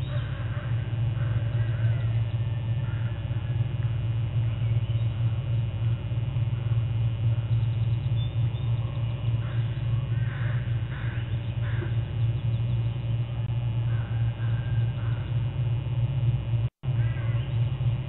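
Birds calling in short, scattered clusters over a steady low hum, which is the loudest sound throughout. The calls come about a second in, around ten seconds in and again around fourteen seconds in, and the sound drops out for an instant near the end.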